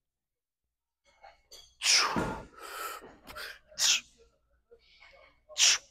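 A man's forceful, sharp exhales and a grunt as he pulls through hard reps of a seated cable row: about four short bursts, the loudest about two seconds in.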